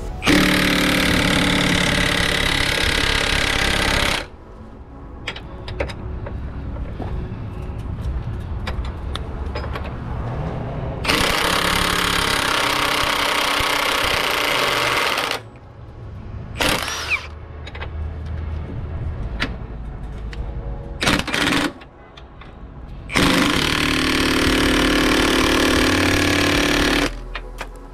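Milwaukee 2967-20 half-inch cordless impact wrench hammering on a rusted, seized rear shock absorber bolt of a semi truck. It runs in three long bursts of about four seconds each, with two brief blips between them; the bolt does not break loose.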